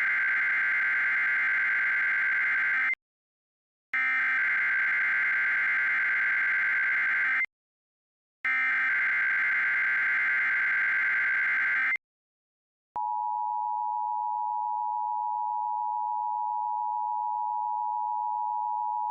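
Emergency alert SAME header: three harsh, buzzing digital data bursts of about three and a half seconds each, a second apart. About a second later a steady two-pitch attention tone comes on and holds. This is the opening signal of a Required Weekly Test on weather radio.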